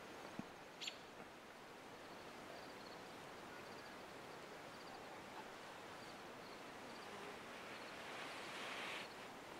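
Faint open-air ambience: a low steady hiss with faint, scattered high chirps, a sharp click about a second in, and a soft rustle lasting about a second near the end.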